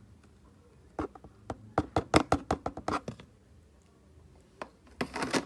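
Fork clicking and tapping against a mixing bowl while stirring cake batter by hand: a fast run of sharp clicks starting about a second in and lasting about two seconds, then a short, denser scraping burst near the end.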